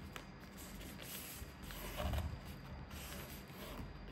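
A sheet of paper being folded and creased by hand, with irregular rustling and crinkling and a dull thump about two seconds in.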